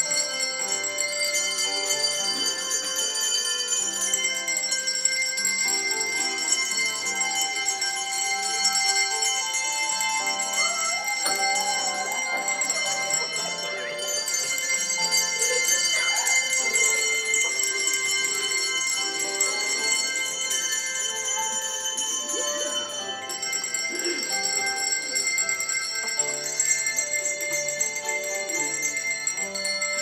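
A set of coloured handbells rung by a group of young children, with many overlapping notes ringing on as a tune is played.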